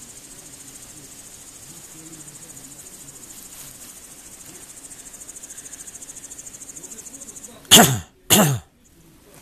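A high, fast-pulsing insect chirring runs steadily in the background, then near the end come two loud, short cough-like bursts from a person, about half a second apart.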